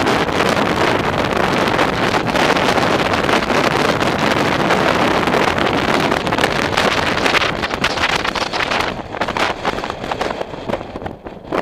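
Wind buffeting the microphone: a loud, steady rushing noise that eases and turns gusty about three-quarters of the way through.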